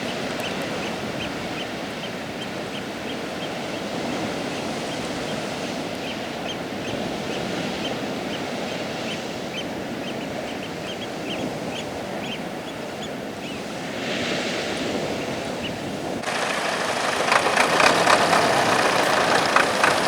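Atlantic surf breaking and washing on a sandy beach as a steady rush, with short high chirps repeating through the first half. About sixteen seconds in, a sudden louder, harsher noise cuts in over it.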